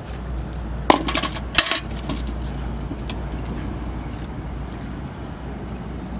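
Metal bucket set down on a tiled step, its handle and rim clattering in two quick bursts of metallic clinks about a second in.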